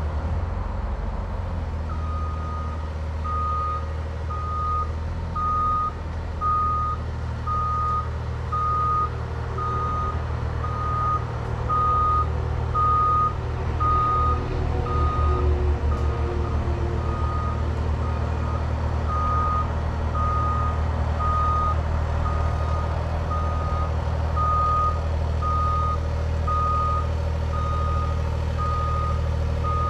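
Cat 303.5 mini excavator's travel alarm beeping steadily, about once a second, starting about two seconds in, over the steady low drone of a diesel engine running.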